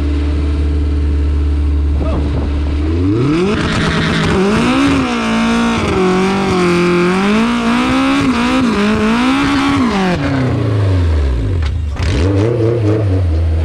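Car engine idling, then revved up quickly about three seconds in and held high, its pitch wavering up and down, before dropping back to idle about ten seconds in. A short blip of the throttle follows near the end.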